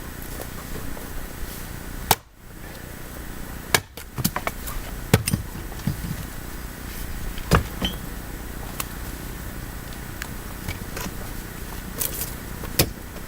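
Firewood being chopped by hand: several sharp knocks of a blade striking wood, at uneven intervals of a second to several seconds.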